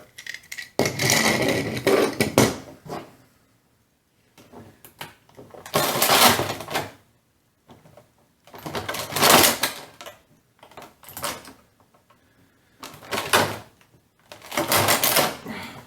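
Plastic and cardboard toy packaging rustling and crinkling in about six separate bursts, as parts of an action figure are handled and pulled out of it.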